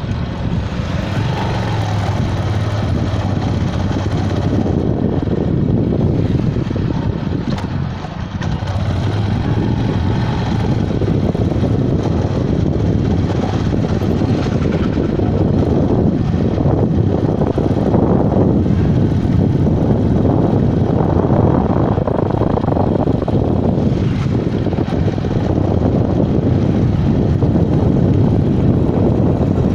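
Motorcycle running at road speed, its engine hum mixed with steady wind noise on the microphone.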